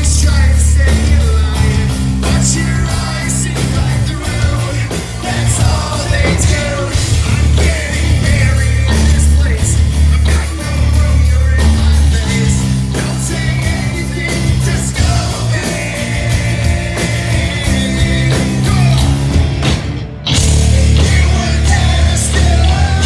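Live hard rock band playing: distorted electric guitars, bass and drums with a male lead singer. The band drops out for a brief break about twenty seconds in, then comes back in.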